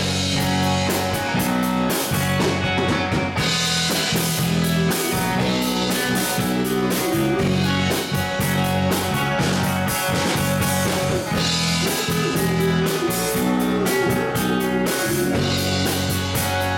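Live rock band playing: two electric guitars, electric bass and a drum kit keeping a steady beat.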